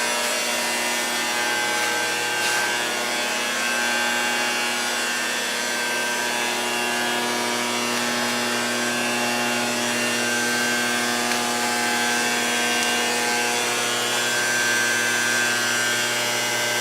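A power tool running steadily without letting up, a constant hum of several steady tones over a noisy hiss.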